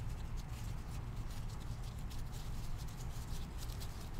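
Quick, irregular light ticks and rustles of small handling noises over a steady low hum.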